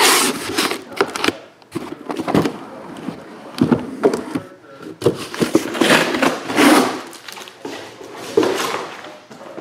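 Cardboard shipping case being slid up off a stack of shrink-wrapped trading-card boxes: cardboard scraping and rubbing against the boxes in several long swishes, with a few sharp knocks as boxes bump the case and the table.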